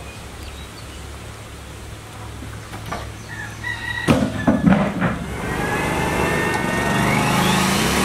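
A rooster crows briefly about three and a half seconds in, followed by a few sharp knocks. From about five and a half seconds a circular saw runs, its whine rising in pitch near the end.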